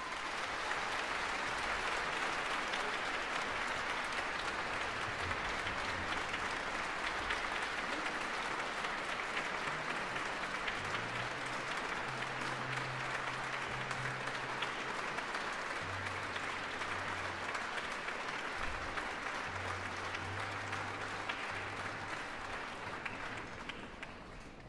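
Audience applauding steadily, thinning out and dying away near the end.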